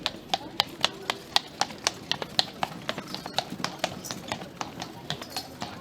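Horse hooves clip-clopping in a steady rhythm, about four hoofbeats a second.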